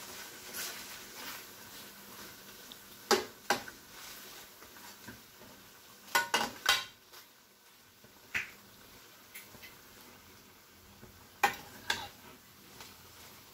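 Metal spoon stirring yogurt into chicken curry in a metal kadhai, clinking and scraping against the pan in scattered sharp knocks, some in quick pairs and a triple, over a faint sizzle.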